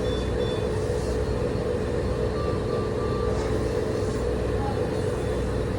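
Steady hum of bedside medical equipment, with an alarm sounding a group of three short beeps near the middle that repeats every few seconds. A couple of higher-pitched beeps come right at the start.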